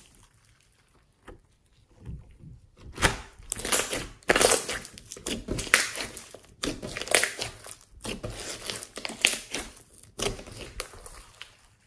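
Hands squishing and kneading a large glossy slime, giving irregular bursts of squelching, crackling and popping of trapped air. It is almost quiet for the first two seconds.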